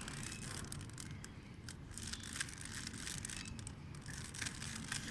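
Rubik's cube being twisted by hand: a quick, irregular run of faint plastic clicks and rubbing as the layers turn.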